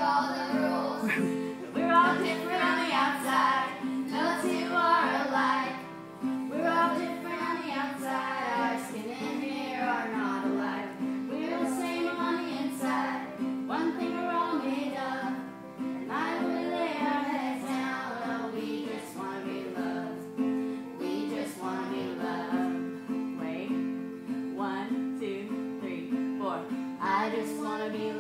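Three children singing a song together over an acoustic guitar accompaniment.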